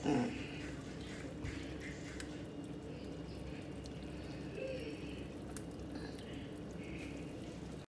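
A spoon scooping thick chicken tomato stew from a pot into a bowl, with soft wet plops and light scrapes, over a steady low hum.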